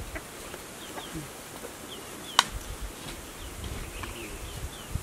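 Outdoor ambience of an insect buzzing and short, faint bird chirps, with one sharp click about two and a half seconds in.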